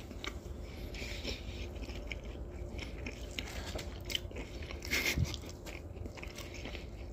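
Close-miked chewing and biting of food: many small crunching clicks, a little louder around five seconds in.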